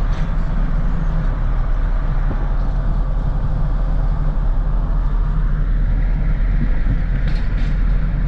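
Road vehicle driving at speed: a steady low engine and road rumble with tyre noise.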